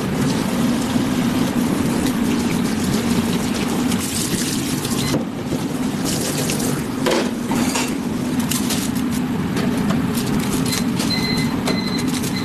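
Restaurant kitchen noise: a steady hum with running water and scattered clatter and knocks, and a few short high beeps near the end.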